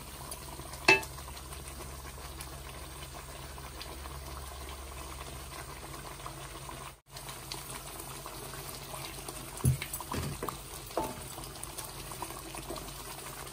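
Thick tomato masala bubbling steadily in oil in a steel karahi, nearly ready. A sharp knock about a second in and a few lighter knocks near the end from the wooden spoon against the pan.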